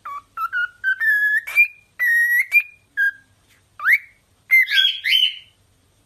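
Cockatiel whistling a string of clear notes, some short and some held, with a quick rising glide about four seconds in and a few warbling notes just after; it stops shortly before the end.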